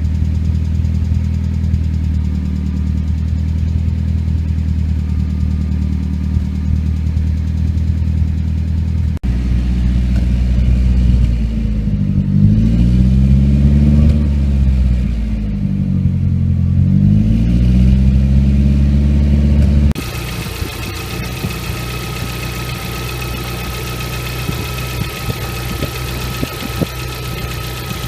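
Nissan CA18DET 1.8-litre turbo four-cylinder running cold: it idles steadily, is blipped twice, rising and falling in pitch, then is heard closer up with a brighter clatter of light irregular ticks. These are the cold-start noises that fade once the engine is warm, which the owner suspects come from the hydraulic lifters.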